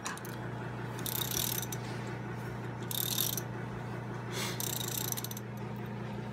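Four short bursts of metallic clicking and rasping from hand tools and parts at a Kawasaki KLX 140's clutch, as the spring bolts are turned out and the pressure plate comes off, over a steady low hum.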